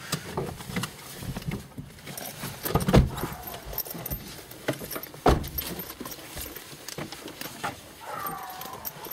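Handling noise inside a car: irregular clicks, light rattles and knocks, with two heavier thumps about three and five seconds in.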